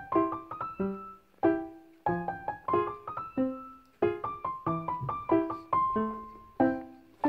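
Background piano music: a light, bouncy tune of short struck notes.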